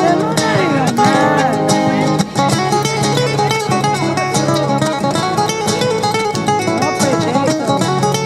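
Music with acoustic guitar, plucked and strummed in a Latin, flamenco-like style, playing steadily with a brief dip a little over two seconds in.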